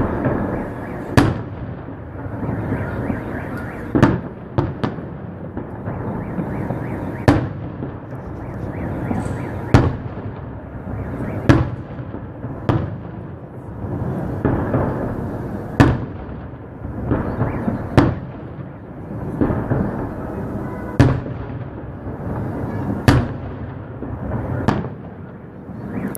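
Fireworks salute: aerial shells bursting with sharp bangs about every two seconds, a dozen or so in all, with a continuous rumbling noise between the bursts.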